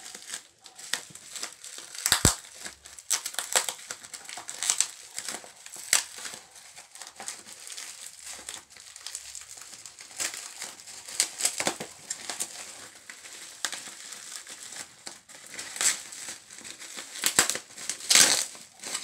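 Bubble wrap and plastic packaging crinkling as it is pulled and peeled off by hand: irregular sharp crackles, loudest about two seconds in and again near the end.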